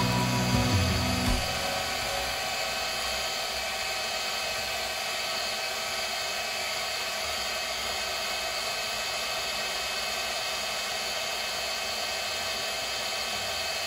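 Electric hand mixer running steadily, its beaters whisking a frothy milk-and-gelatin mixture in a stainless steel bowl: an even, high motor whine.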